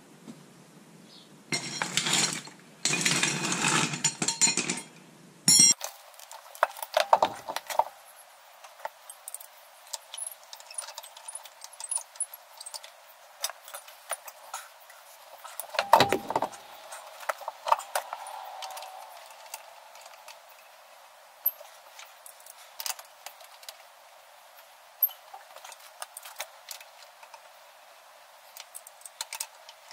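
Metal clinks, taps and knocks of tools and parts being handled while a front wheel is hung back on a jacked-up ute. About two seconds in there are a few seconds of loud rattling.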